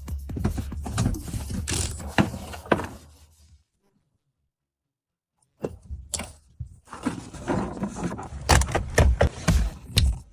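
Irregular sharp knocks, taps and clatter of hand work on metal, over a steady low hum for the first few seconds. It cuts to about two seconds of dead silence, and then a quick run of knocks and taps follows.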